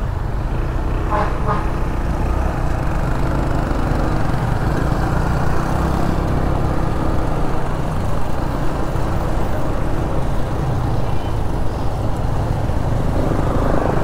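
Motorcycle being ridden on the road: a steady engine drone mixed with road and wind noise.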